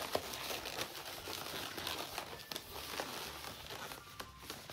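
Inflated 260 latex twisting balloons rubbing and crinkling against each other as one is twisted and wrapped into a pinch twist, in irregular short strokes, with a brief squeak near the end.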